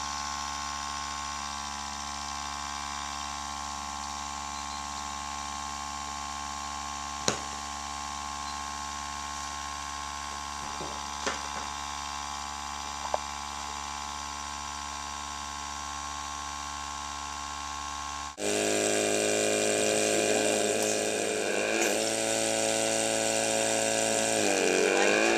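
Small electric compressor of a windshield chip-repair kit running steadily, drawing a vacuum on the chip through the resin injector, with a few light clicks. About 18 seconds in the sound cuts suddenly to a louder machine hum with several tones, which dips and rises in pitch near the end.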